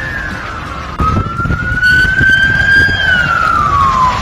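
A siren wailing in a slow rise and fall. It gets louder about a second in as a new rise begins, then falls in pitch near the end.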